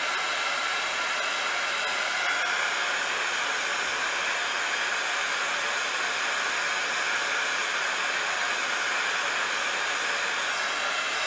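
Handheld hot-air dryer running steadily to dry acrylic paint: an even rush of air with a steady fan whine.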